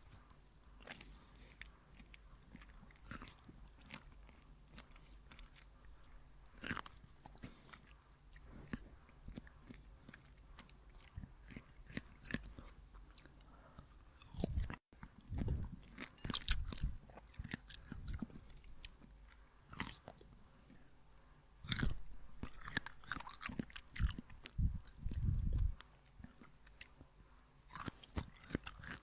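A person biting into and chewing pineapple rings: irregular bites and chewing sounds, with louder, denser chewing in stretches in the second half and a brief break about halfway.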